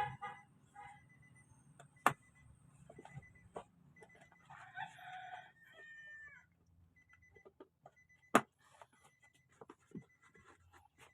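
A rooster crowing once, about four seconds in, its call trailing off in a falling note, with a few sharp knocks around it, the loudest near the end.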